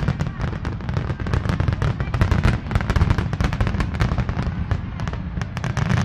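Aerial fireworks shells bursting in a dense barrage: many sharp bangs in quick succession, overlapping without let-up over a constant low booming.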